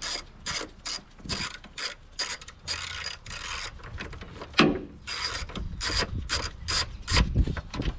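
Hand ratchet clicking in quick repeated strokes, about two or three a second, as the upper strut mount nuts on the front strut tower are backed off. One sharper metallic clink a little past the middle.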